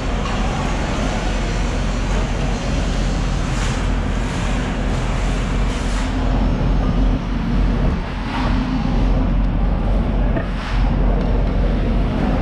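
Steady low machine hum under a dense, even background din, with a few short hissing noises spaced a couple of seconds apart.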